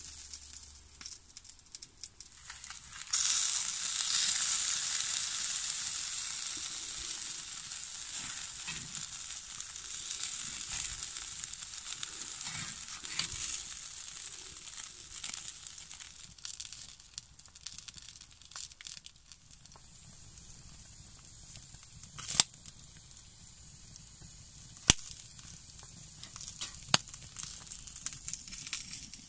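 Burger patties sizzling in a wire grill basket over a wood fire. The sizzle starts suddenly a few seconds in and slowly dies down, with a few sharp clicks near the end.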